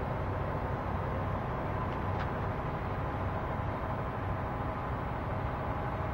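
Steady engine hum under a rushing noise, with a faint click about two seconds in.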